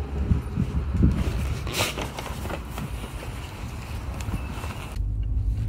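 Footsteps on paving and the jostling and rustle of a paper takeout bag in an insulated delivery bag as it is carried. About five seconds in the sound cuts to the steady low hum of a car interior.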